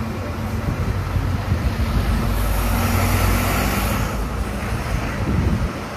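Heavy engine running close by, a steady low rumble with a hum, with a hiss rising over it for about a second and a half in the middle; the rumble drops away near the end.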